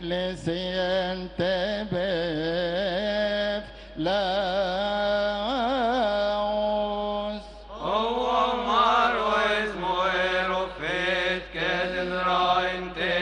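Coptic Orthodox liturgical chant: a male voice sings long, wavering melismatic phrases in a resonant church, pausing briefly for breath twice.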